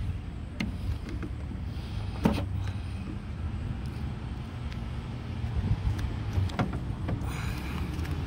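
Scattered light clicks and knocks of hand tools and metal brake fittings being worked on a car's ABS unit, the loudest a single knock about two seconds in and a short scrape near the end, over a steady low rumble.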